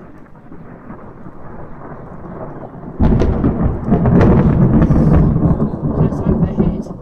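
Thunder from a storm close to overhead: a low rumble builds for about three seconds, then a loud crack of thunder breaks and rolls on for several seconds before easing near the end.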